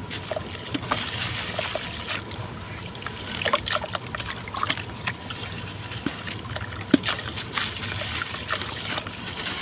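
Sand-cement blocks crumbling in water: irregular gritty crackles and small splashes, with one sharper click about seven seconds in.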